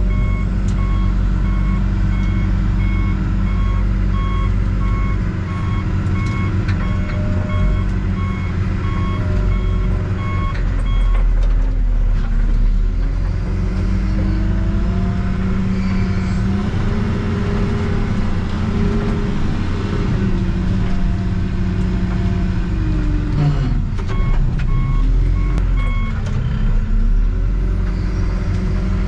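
Backhoe's diesel engine running, its pitch dipping and rising a few times as it revs, with the backup alarm beeping about twice a second. The beeping stops about eleven seconds in and comes back briefly later.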